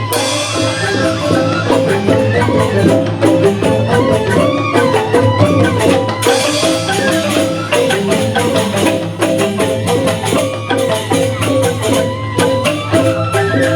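Balinese joged bumbung ensemble playing: bamboo xylophones struck with mallets in fast, dense interlocking note patterns over a steady low pulse, with quick percussive clicks throughout.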